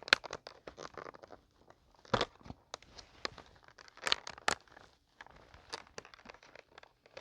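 Crinkling and tearing of a glue package being worked open by hand: a run of short, irregular crackles and clicks.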